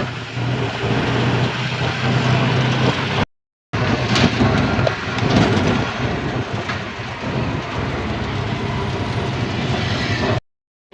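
Steady road traffic noise with a low engine hum, broken by a moment of total silence about a third of the way in and again just before the end, where the footage is cut.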